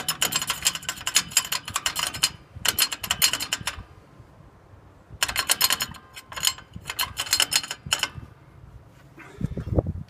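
Rear drum brake hardware of a Dodge Li'l Red Express truck, drum removed, rattled by hand: the brake shoes and return springs clatter in three bursts of rapid metallic clicking. A dull low bump follows near the end.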